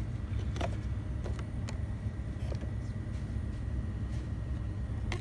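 Steady low hum of a shop's background noise, with a few light clicks as plastic blister cards of lip balm are touched on their display hooks.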